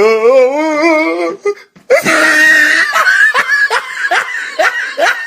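A voice holds a wobbling, wavering note for about a second and a half. After a brief break, a person bursts into loud laughter in quick repeated pulses.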